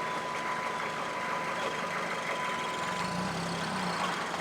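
Saturn car engine running steadily, with a freshly replaced transmission. A thin, steady high tone sounds along with it and stops about three seconds in.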